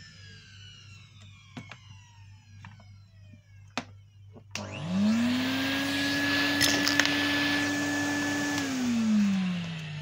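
Henry Hoover vacuum cleaner's motor winding down, with a few sharp clicks. About halfway it is switched on, rising quickly to a steady running hum and whine with a rushing of air. A small Lego piece rattles briefly through the metal pipe, then the motor is switched off and winds down near the end.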